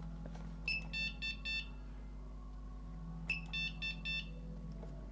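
Handheld LAN cable tester with a display beeping while it tests a cable run to a working IP camera. It sounds two bursts about two and a half seconds apart, each a short high chirp followed by three quick beeps, over a low steady hum.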